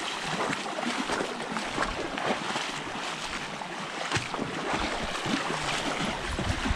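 Steady rush of flowing water, with wind buffeting the action camera's microphone.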